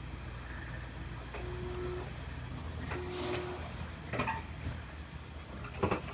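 Two short bursts of welding on a car's rear body panel, each steady and under a second long and about a second apart, followed by a few light knocks.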